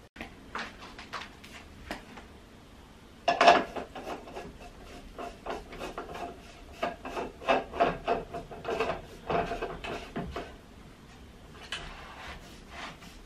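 Black plastic legs being screwed by hand into the wooden base frame of an IKEA Ektorp sofa: irregular rubbing and scraping strokes of plastic against wood as each leg is turned, starting about three seconds in and easing off near the end.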